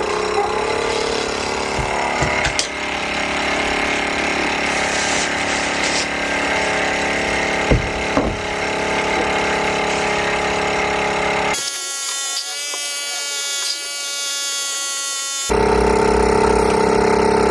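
Hantop goat milking machine's electric vacuum pump running with a steady motor hum. The sound thins out for a few seconds about two-thirds through, then comes back louder.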